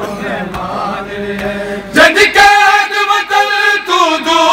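Men's voices chanting a noha, a Shia mourning lament, together as a group. About two seconds in, a louder voice close by takes up the line.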